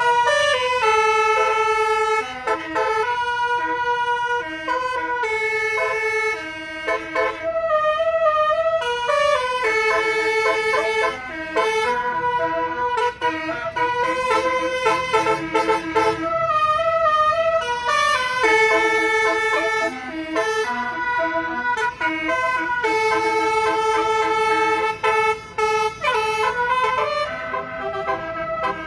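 Basuri multi-tone 'telolet' bus horn playing a melody of held notes that step up and down, with the phrase repeating several times and short breaks between phrases. The tune sounds somewhat like a horror tune.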